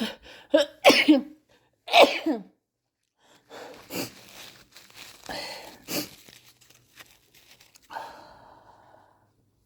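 A person's sneezes and coughs: a run of sharp bursts, the loudest two about one and two seconds in, then weaker ones, and a longer breathy sound near the end.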